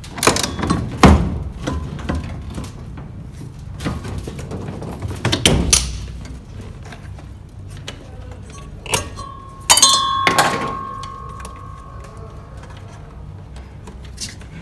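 Knocks and clatter of hand work on a washing machine during repair, several sharp thuds, then a metallic clank about ten seconds in that rings on briefly.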